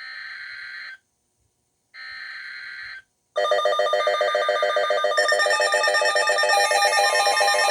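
Emergency Alert System SAME header on NOAA Weather Radio: two one-second warbling digital data bursts with a second's gap between them, signalling that a tornado warning is being issued. About three seconds in, a much louder, steady electronic alert alarm starts and runs on.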